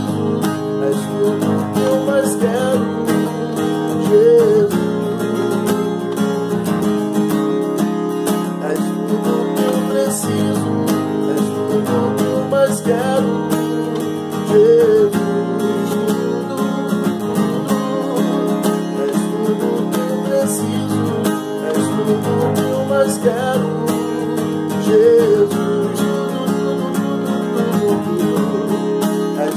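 Acoustic guitar strummed steadily, playing the chords of a worship song, with a man's voice singing along at times.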